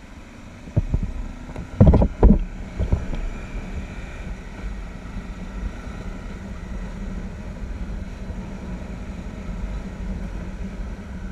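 Motorcycle engine running steadily while riding, heard from a camera mounted on the bike, with wind rushing over the microphone. A few heavy thumps come about two seconds in.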